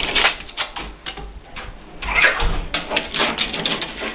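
Close rustling and scratchy clicks of a blanket being handled and scrabbled over, with a louder rustle about two seconds in.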